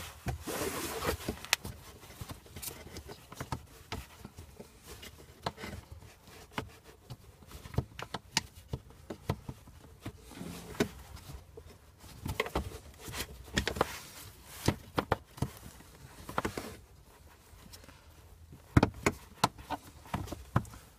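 Irregular plastic clicks, taps and scrapes as the cabin-air-filter cover is worked into its slot behind the glovebox. A few louder knocks come near the end.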